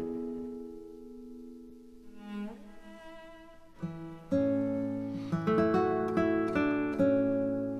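Background music played on plucked strings, a guitar-like melody. The notes thin out and fade during the first few seconds, then pick up again with fuller plucked chords about four seconds in.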